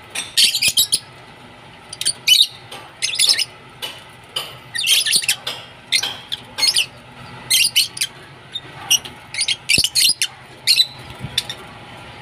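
Lovebirds chirping: clusters of short, high-pitched chirps about once a second, with brief pauses between the clusters.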